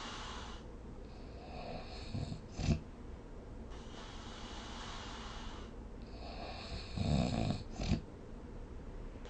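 A sleeping person snoring in a slow rhythm. There are two breath cycles about five seconds apart, each an airy breath followed by a low snore that ends in a short, sharp burst.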